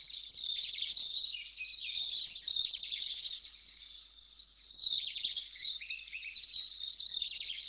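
Birds chirping and singing in the background, many short high calls overlapping without a break, easing briefly about four seconds in.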